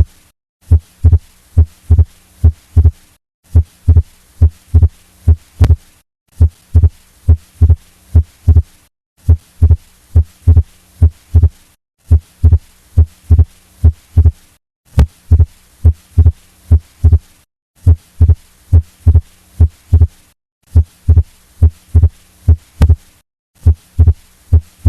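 Heart sounds heard through a stethoscope: a steady series of low thuds, the first and second heart sounds, with the second sound split into two close beats that stay split through breathing in and out. This is fixed splitting of the second heart sound with no murmur, the classic sign of an atrial septal defect. The sound breaks off for a brief gap about every three seconds.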